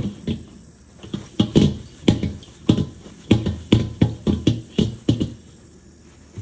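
Paper towel rubbed in quick, uneven strokes over a carbon steel wok as it is wiped dry, each stroke a sharp scrape with a thump from the thin metal, about three a second, stopping about five seconds in. A tap runs faintly underneath.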